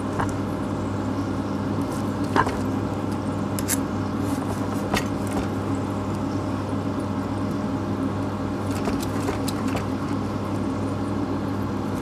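Chef's knife slicing through cooked steak on a plastic cutting board, with a few scattered taps of the blade on the board. A steady low hum runs underneath.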